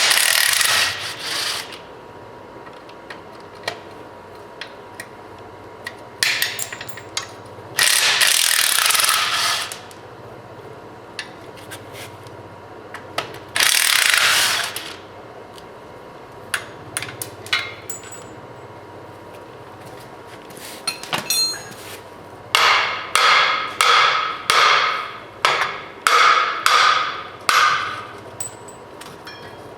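A steel hammer striking metal about nine times in quick succession near the end, each blow ringing, knocking a drum brake backing plate loose from a GM 12-bolt rear axle. Earlier come several short, loud bursts of tool noise, each a second or two long.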